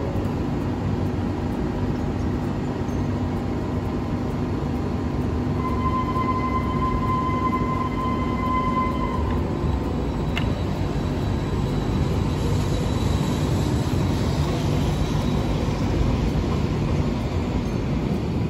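Hiroden 5000-series Green Mover low-floor tram at the platform, with a steady hum and rumble. A steady high tone sounds for about three seconds about a third of the way in. The tram then moves off past the microphone, its running noise building with a rising hiss.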